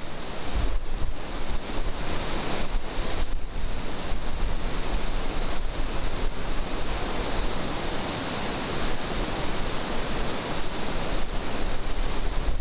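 Flood-swollen river rushing through churning rapids, a steady wash of turbulent water, with wind buffeting the microphone in uneven low rumbles.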